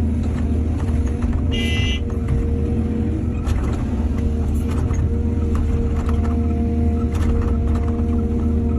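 Excavator's diesel engine running steadily, with scattered sharp knocks through the middle and later part. A brief high-pitched tone sounds about one and a half seconds in.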